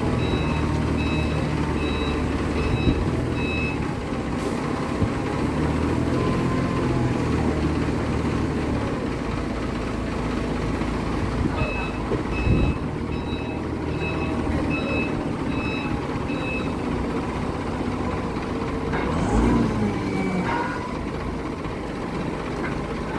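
Forklift engine running under load, with its reversing alarm beeping about every half second, first for about four seconds and again from about twelve to seventeen seconds in, as the forklift backs away.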